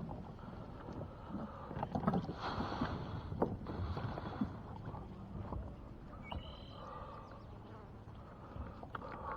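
Water lapping against a kayak hull, with scattered light knocks and clicks.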